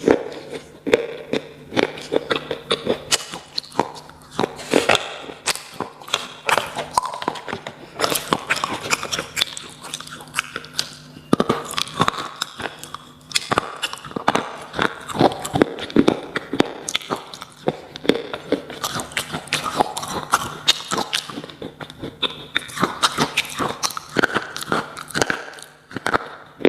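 Slate pencils being bitten and chewed: sharp, irregular crunches, often several a second.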